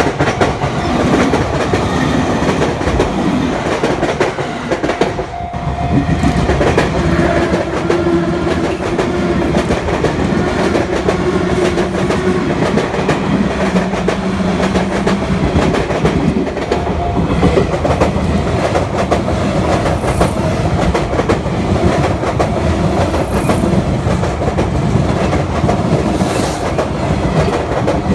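Electric commuter train passing over rail joints, its wheels clattering in a continuous run of clicks, with a brief drop in level about five seconds in.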